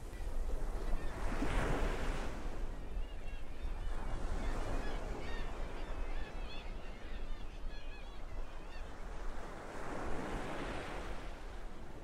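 Ocean surf, with one wave breaking about a second in and another near the end over a steady low rumble. In between, a flock of seagulls calls over and over with many short, high cries.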